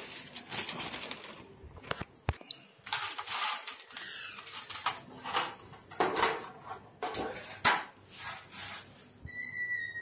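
Sheets of newspaper rustling and crackling as they are spread and pressed flat over a metal cage tray, with irregular handling knocks. A short, steady high-pitched squeak near the end.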